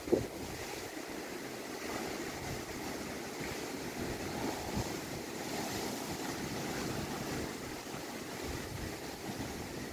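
Wind-driven lake waves washing and breaking on the shore, with gusty wind buffeting the microphone. A single sharp knock right at the start.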